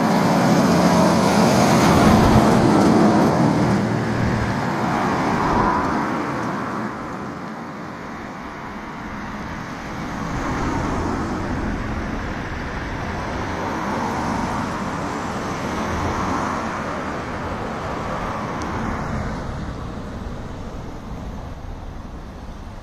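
Road traffic: passing cars making a steady rushing noise. A louder pass comes in the first few seconds, softer ones follow later, and the noise fades toward the end.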